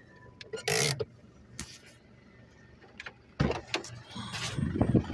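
Irregular knocks, clicks and rustles inside a vehicle cabin, with two short bursts of hiss-like noise about a second in, and more knocks in the second half.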